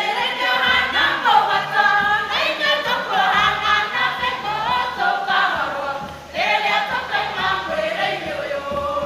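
Mixed church choir of men and women singing a Kikuyu song together, with a short break between phrases about six seconds in.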